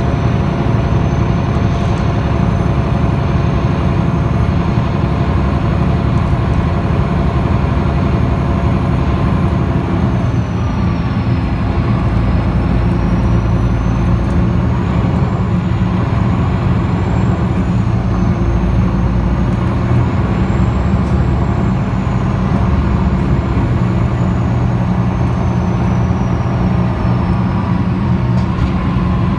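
A MAN NL323F city bus with a MAN D2066 diesel engine and ZF EcoLife automatic gearbox, cruising at steady speed, heard from inside the cabin as a loud, steady drone. Through the second half a faint high whine rises and falls several times.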